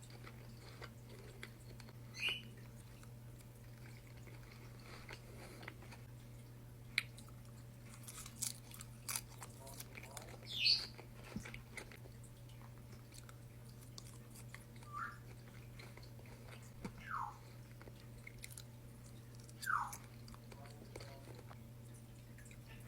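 Close chewing and crunching of food over a steady low hum, with a pet bird's short chirps and whistles now and then; near the end come three short whistles, the last two sliding downward.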